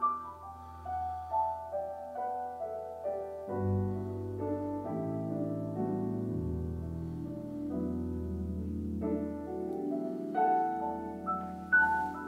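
Background music: a melody of piano-like keyboard notes, with a low bass line coming in about three and a half seconds in.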